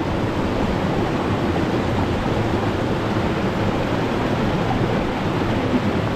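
Rushing water of a waterfall and creek running high and fast: a steady, even wash of noise with no breaks.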